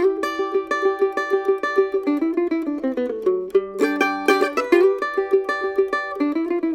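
Gold Tone GM-6+ six-string mando-guitar playing a slow riff: a steady run of picked notes, each ringing briefly, with a lower note held for about half a second near the middle.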